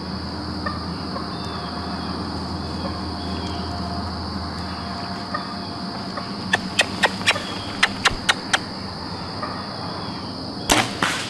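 Steady high-pitched insect chorus in the woods, with a quick run of about eight sharp clicks in the middle and a louder clatter of knocks near the end, from handling gear in the tree stand.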